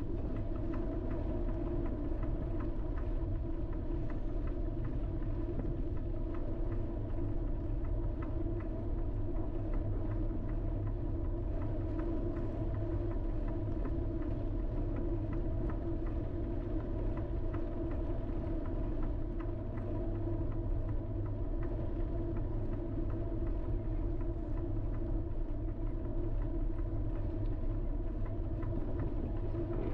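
A vehicle driving along a street at a constant speed: a steady engine and road drone with a low rumble that doesn't change.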